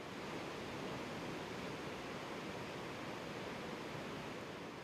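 Surf breaking and washing up a sandy beach, heard as a steady, even rush of noise.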